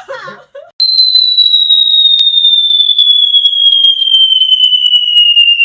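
A loud, high-pitched single tone starts abruptly about a second in and slowly glides downward in pitch, with a few faint clicks over it.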